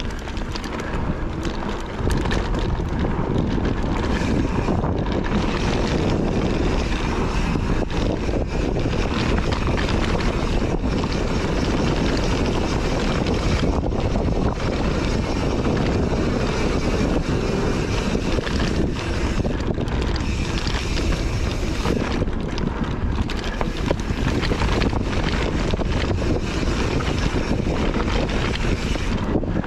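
Mountain bike riding fast along a dirt trail, with heavy wind noise on the microphone; the noise rises about two seconds in and then stays steady.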